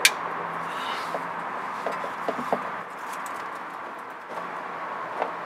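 Looped oil filter wrench straining on a car's oil filter: a sharp click right at the start, then a few faint clicks and creaks, over a steady background hiss.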